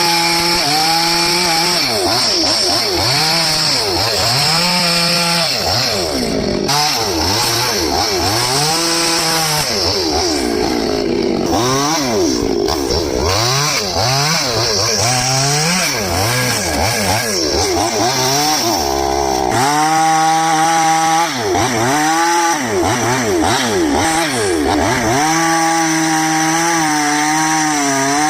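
Two-stroke chainsaw running and cutting wood, its engine pitch repeatedly rising and falling every second or two as the throttle is worked and the chain loads up in the cut.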